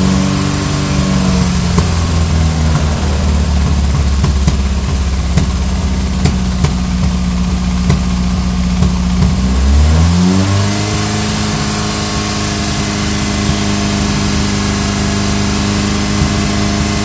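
Ford Pinto engine running with a misfire. It runs at a low steady speed with irregular sharp ticks breaking through, then about ten seconds in the revs rise and hold at a higher steady speed.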